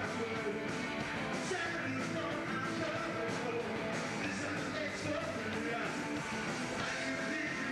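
Rock band playing live, electric guitar over drums keeping a steady beat.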